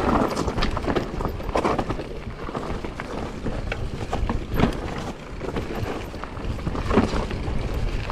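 Mountain bike riding fast down a rough trail: a steady rumble of wind and tyres, with the bike rattling and knocking over bumps, a few harder knocks in the second half.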